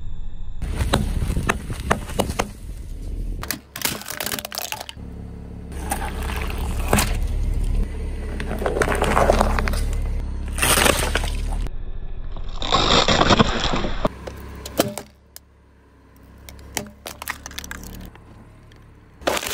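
A car tyre rolling over and crushing plastic objects on pavement, in several separate crushes: sharp cracks and crunching of plastic over the low rumble of the car, with a quieter stretch of scattered cracks near the end.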